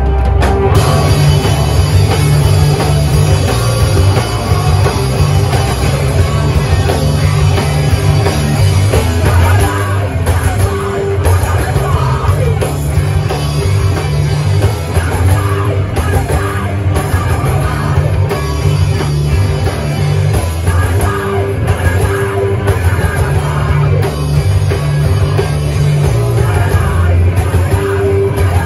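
A live rock band playing loud, heavy punk-style music, with drum kit and yelled vocals, heard from within the crowd in a small room.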